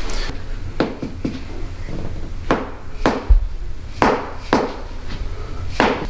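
A mallet tapping a rod held against a patient's lower back during a chiropractic adjustment: a series of sharp taps, mostly in pairs about half a second apart.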